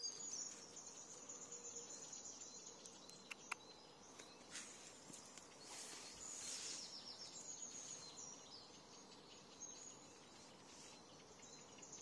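Near silence, with faint, steady high-pitched chirping in the background and a couple of soft clicks about three seconds in.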